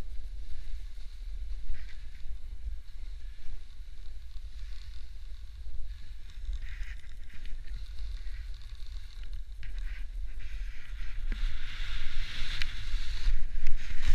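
Wind buffeting the microphone over the hiss and scrape of a snowboard sliding across firm snow. The scraping grows louder near the end.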